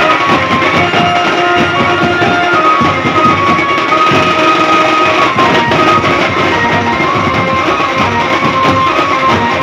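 Loud procession music: big barrel dhol drums beaten with sticks in a fast steady rhythm, with a stepping melody line over them.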